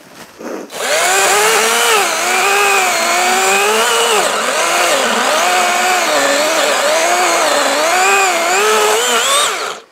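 Chainsaw cutting down a tree stump, starting from silence and running at full speed. Its pitch dips and recovers again and again as the chain bites into the wood, then it stops suddenly near the end.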